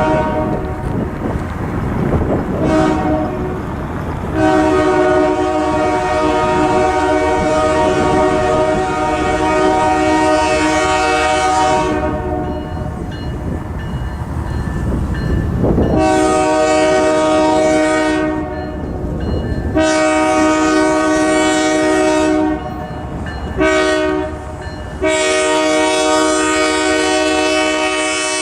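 Freight locomotive's air horn sounding a chord of several notes in held blasts: one long blast, then the long, long, short, long grade-crossing signal, over the low rumble of the passing train.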